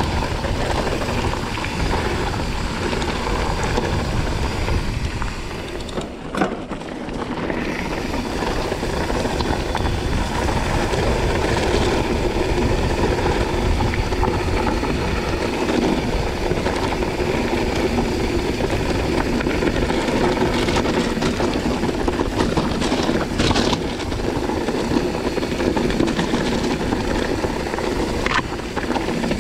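Mountain bike rolling fast down a loose gravel and stone track: steady crunch of the tyres on stones and rattle of the bike, mixed with wind rushing over the microphone. The noise dips briefly about six seconds in, and there are a couple of sharp knocks from hitting stones near the end.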